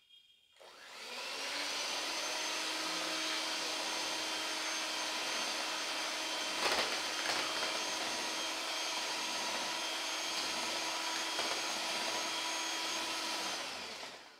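Electric hand mixer running at a steady speed, its beaters whipping chantilly cream with condensed milk in a plastic bowl. The motor spins up about half a second in, gives two brief knocks around the middle, and winds down near the end.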